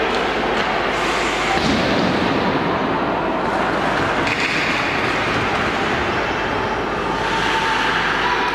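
Ice rink noise during hockey practice: a steady hiss of skates carving and scraping the ice, with a few faint knocks of sticks and pucks.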